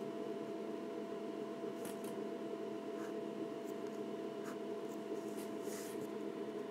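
Ink pen drawn along a T-square on paper: several brief scratchy line strokes, spaced irregularly, over a steady low hum.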